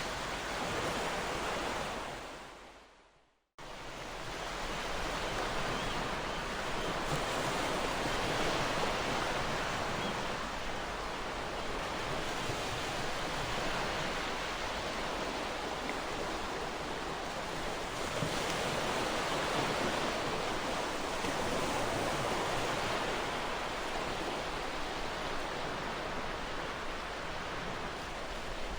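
Ocean surf washing onto the shore, a steady rushing noise that slowly swells and eases. About three seconds in it fades to silence and then cuts back in abruptly, a join in the recording.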